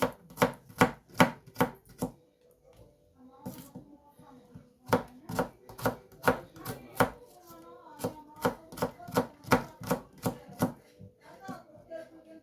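Knife chopping onions: quick, sharp strikes about three a second, stopping for about three seconds after two seconds and starting again.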